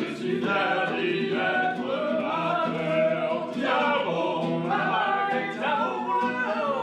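Several voices singing a song together to an acoustic guitar.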